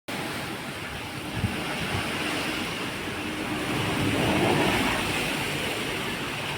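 Strong wind blowing with rain, a steady rushing noise that swells in a gust about four seconds in. A short knock is heard about a second and a half in.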